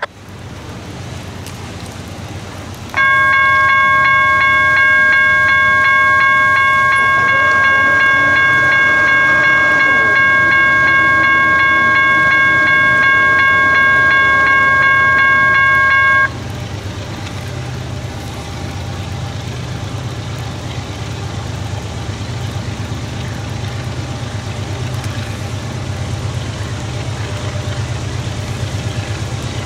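Freight locomotive air horn sounding one long, steady chord of several notes for about 13 seconds, starting about three seconds in and cutting off abruptly. Under it the low rumble of the diesel locomotives carries on and grows louder toward the end as the train approaches.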